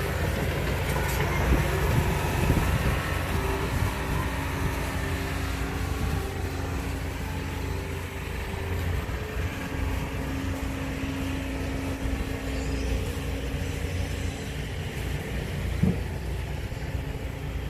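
Engine of a mobile-home moving machine running steadily under a manufactured-home section as it moves it, with a constant low rumble. A single knock near the end.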